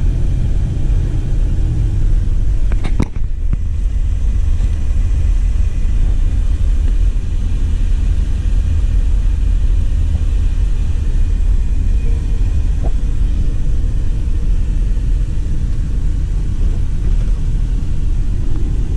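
Car driving along: steady low engine and road rumble, with a brief click about three seconds in.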